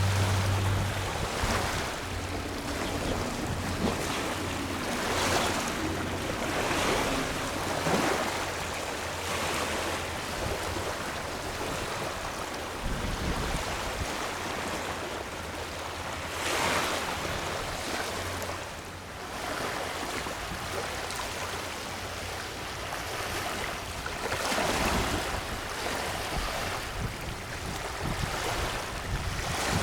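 Small waves washing up onto a sandy beach near high tide, each one surging and falling back every few seconds. A low steady hum fades away over the first ten seconds or so.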